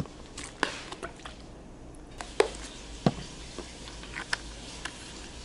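Scattered light clicks and taps of small plastic contact-lens cases being handled on a counter, about six in all, over a low steady room hum.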